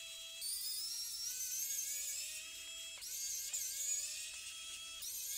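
Pen-style electric precision screwdriver whirring as it backs out the small bolts holding a mouse's scroll-wheel assembly. It runs in spells, its pitch rising slowly in each, and stops and starts again about half a second in, about three seconds in and near the end.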